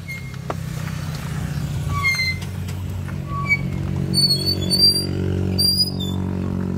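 Motorcycle engine running steadily, growing fuller and a little louder from about halfway through, with short high chirps scattered over it.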